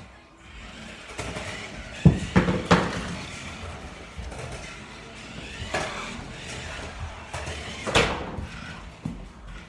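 Several sharp knocks and bangs: three close together about two seconds in, then single ones near six and eight seconds in.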